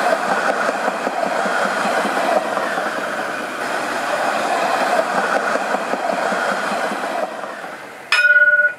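Alstom Citadis tram running past on its rails, a steady rolling noise that fades away over the last couple of seconds. Near the end, a short, loud ringing tone from the tram's warning bell.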